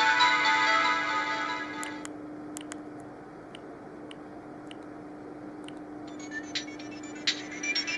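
Siemens CX65 mobile phone playing its built-in melodies through its small speaker: a bright synthesized tone fades out about two seconds in, a few faint clicks follow, and about six seconds in the next short sound starts with sharp, clicky notes. A steady low hum runs underneath.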